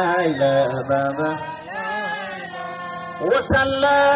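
A man's voice singing a drawn-out religious chant, holding long notes that slide up and down in pitch.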